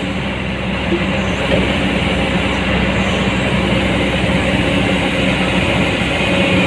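Komatsu PC200-8 hydraulic excavator's diesel engine running steadily with an even drone.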